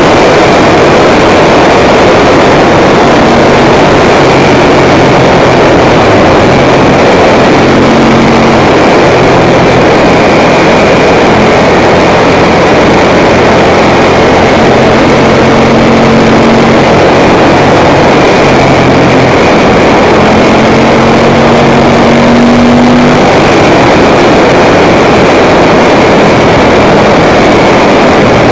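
Ducati Monster 900's air-cooled L-twin engine pulling the bike along a winding road, its pitch holding for a few seconds and then shifting as the revs change. It is heard under a heavy rush of wind on the camera microphone, loud and unvarying in level.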